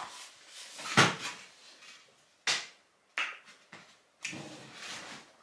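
Handling noises from products and packaging being picked up and set down on a table: a few separate knocks and clatters, the loudest about a second in, with some rustling near the end.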